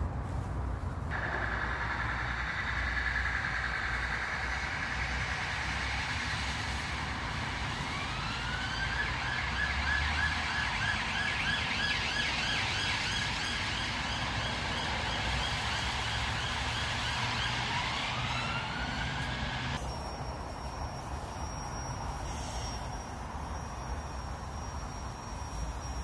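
Emergency-vehicle siren on the dual carriageway: slow rising wails, a fast yelping warble for several seconds in the middle, then rising wails again, over a steady rumble of traffic. It cuts off abruptly about twenty seconds in.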